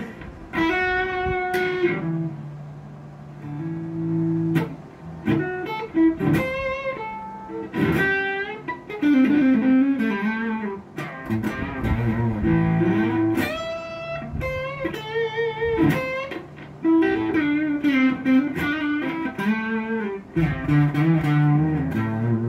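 A 1991 Gibson Les Paul electric guitar is played in blues-style lead lines: single sustained notes with string bends and vibrato, mixed with a few short chords.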